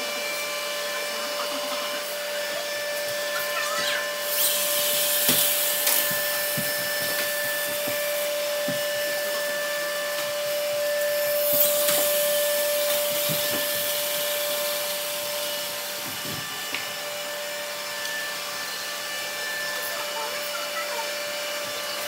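Several robot vacuums running together on a hardwood floor, a steady motor whine with a held tone. Two short hissing bursts come about four seconds in and again near twelve seconds.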